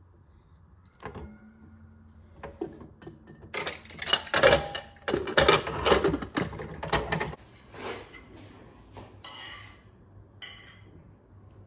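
Metal clatter of a spoon scraping and knocking inside a pressure cooker as pulao is served, then the cooker's lid being handled and fitted back on, the loudest clatter in the middle; a few lighter clinks follow near the end.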